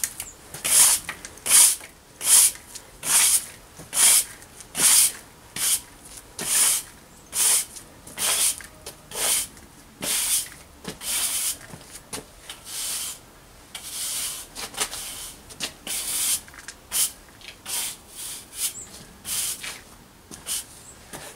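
Stiff-bristled push broom sweeping loose soil across concrete paving slabs. Its scratchy swishes come in brisk strokes, a little more than one a second, and turn softer and less regular about halfway through.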